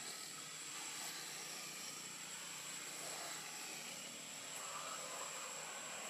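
Steady outdoor background hiss with a constant thin high-pitched whine over it, and no distinct calls or knocks.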